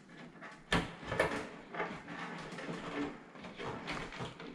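LED tube being worked into the sockets of a ceiling light fixture: a sharp click under a second in and another soon after, then lighter taps and scraping of the tube's pins and plastic against the sockets.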